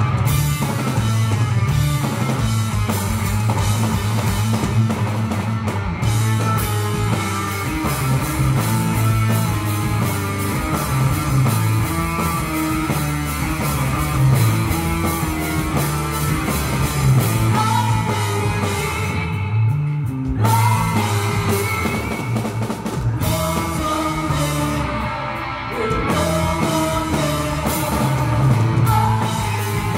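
Live rock band playing: electric guitar, bass, drum kit and keyboard, with a woman singing. The cymbals drop out briefly about two-thirds of the way through.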